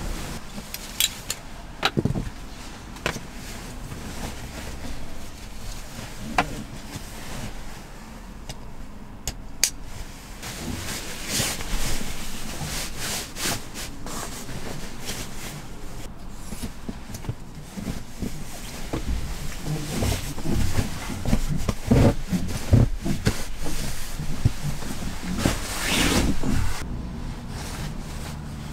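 Sleeping bag, stuff sack and blanket being handled in a cramped camper: fabric rustling and rubbing, with scattered soft knocks. It gets busier and louder in the second half.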